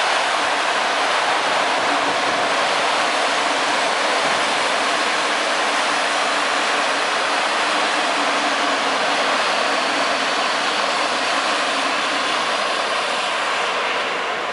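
Passenger coaches of a train rolling past over a rail bridge, a steady loud rush of wheels on rails while the train slows under its locomotive's electrodynamic braking; the noise drops off near the end as the last coach clears.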